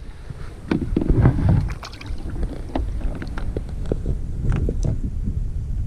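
Wind buffeting the microphone aboard a small skiff, with water slapping the hull and scattered knocks and clicks. There is a louder rush about a second in.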